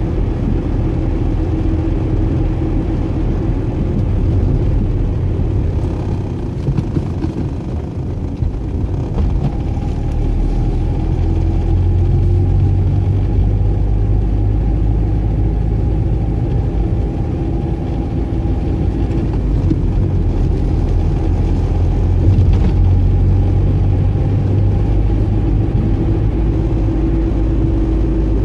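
Car engine and tyre rumble heard from inside a moving car, steady and low, with the engine's hum drifting slightly up and down in pitch.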